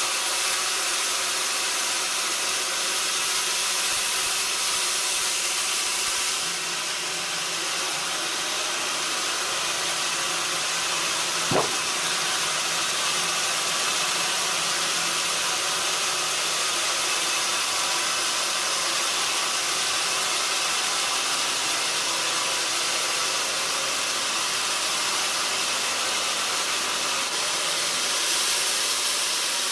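Sawmill saw running steadily as it cuts a mahogany log, a continuous hissing noise that brightens slightly about six seconds in. A single sharp click about eleven seconds in.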